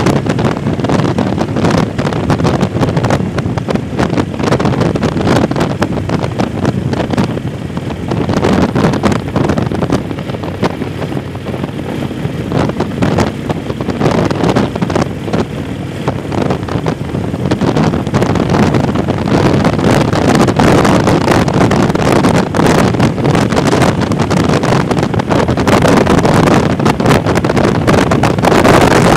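Motorcycle riding at road speed: wind buffeting the microphone over the engine and road noise, getting louder about two-thirds of the way through.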